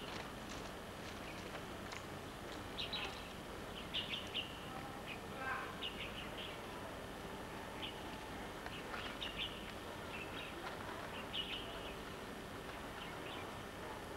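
Small birds chirping in short, scattered calls every second or two over a steady background hiss.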